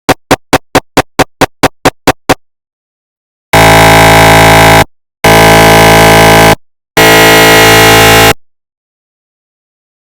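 Synthesized recreation of a GE 750w 3T MRI scanner's pulse-sequence noise. A rapid run of about ten short knocking pulses, roughly four a second, is followed by three loud, long buzzing tones of about a second and a half each with short gaps between them.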